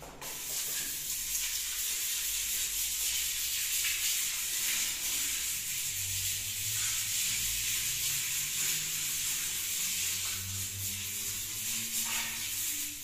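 Plastic trowel rubbing and pressing fine-grained decorative plaster on a wall: a steady scraping hiss that goes on stroke after stroke.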